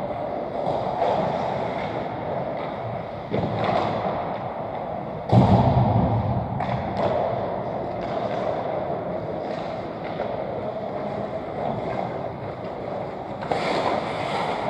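Ice hockey rink sounds during a pick-up game: skates scraping on the ice with sticks and pucks knocking, over a steady hum of arena noise. A loud thump about five seconds in fades over a second or two, and the skating gets louder near the end as players come toward the net.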